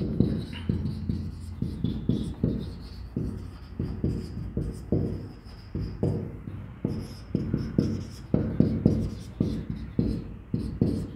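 Marker pen writing on a whiteboard: a run of short, irregular strokes and taps, over a steady low hum.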